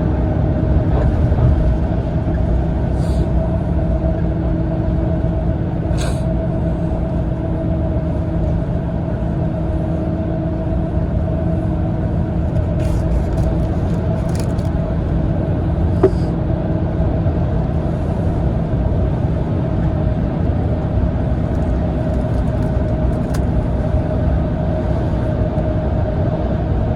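Cabin noise inside a Mitsubishi Fuso Aero Ace coach on the move: a steady low drone of the diesel engine and road, with a steady hum running through it. A few faint clicks and rattles come from the cabin, one about six seconds in and a couple more in the middle.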